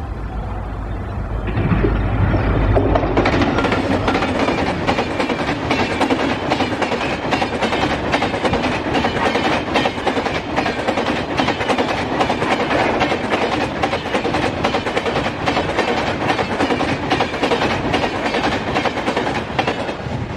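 Indian express passenger train of LHB coaches passing close at speed. A dense rush of wheel and rail noise swells about two seconds in as the locomotive arrives, then holds steady with rapid clickety-clack from the wheels over rail joints as the coaches go by, easing off at the very end as the last van passes.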